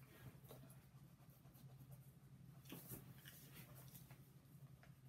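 Near silence: faint taps and scrapes of a paintbrush dabbing paint on a paper palette and a painted wooden cross, a few times, the most distinct about three seconds in, over a low steady hum.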